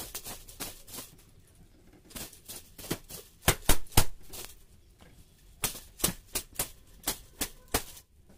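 Plastic-bristle hand broom swept in quick strokes across a bedsheet, a string of sharp swishing slaps in uneven bursts, loudest about three and a half to four seconds in.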